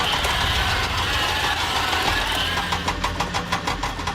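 Vehicle engine running steady; about three seconds in it settles into a rapid, even chugging of several beats a second.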